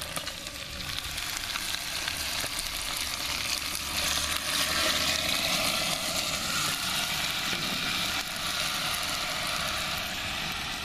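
Red-wine and balsamic-vinegar marinade poured into a hot cast-iron potjie of browned oxtail, sizzling steadily as the liquid hits the hot pot and meat. The sizzle grows louder about four seconds in, then eases off.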